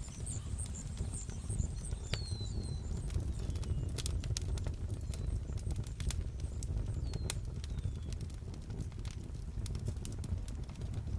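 Ambient soundscape: a steady low rumble with scattered sharp clicks throughout, and a few short falling chirps in the first seven seconds.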